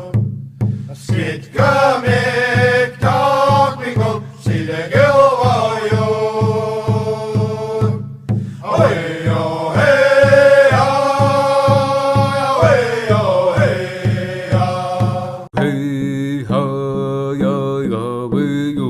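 A chanted song sung over an even low beat of about two to three pulses a second. About fifteen seconds in, it cuts to a different song.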